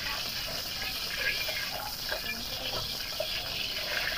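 Hot cooking oil sizzling with small crackles in a stainless steel wok, a steady hiss.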